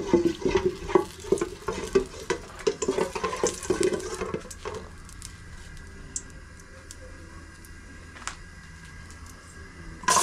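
Wooden spoon scraping and knocking against an aluminium stockpot of hot oil for about five seconds, followed by a quieter stretch with a single click. Right at the end comes a sudden loud sizzle as chopped garlic, lemongrass and chili are tipped into the hot oil to stir-fry.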